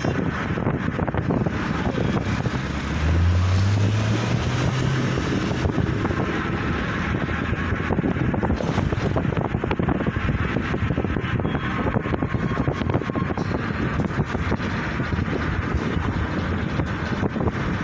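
Steady road traffic noise with wind buffeting the microphone; about three seconds in, a low engine note rises for a couple of seconds as a vehicle accelerates.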